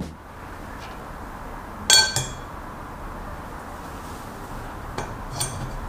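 A stainless-steel mesh strainer set down into a glass mixing bowl: one sharp clink about two seconds in with a brief ringing of the glass, then two light taps near the end.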